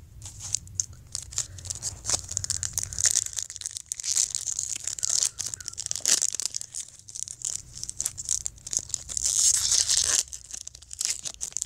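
Foil wrapper of a baseball card pack crinkling and tearing as it is opened by hand, a dense run of crackles and clicks that grows louder midway and again near the end.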